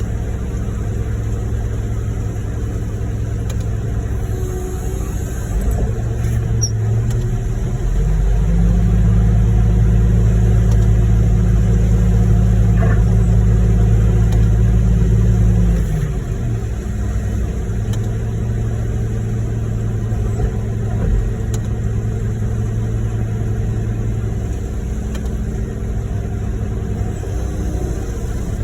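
Heavy diesel truck engine running steadily during a concrete pump pour, revved up to a higher, louder speed about eight seconds in and dropped back down about eight seconds later.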